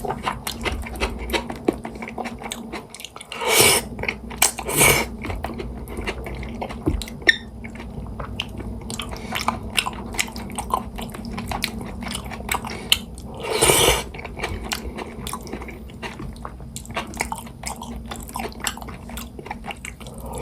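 Close-miked mukbang eating of jajangmyeon: wet chewing of thick noodles in black bean sauce with many small mouth clicks, and three louder rushes of noise at about three and a half, five and fourteen seconds in.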